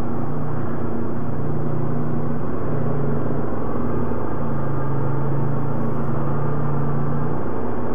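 All-terrain vehicle engine running at a steady low trail speed, a continuous drone whose pitch shifts slightly a few times.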